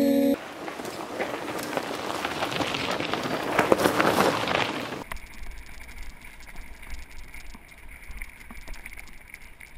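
Mountain-bike tyres crunching and crackling over loose gravel and stones, louder as the wheel rolls close by, peaking just under 4 s in. After about 5 s it turns quieter, with a low rumble and faint crunching as the riding goes on along the track.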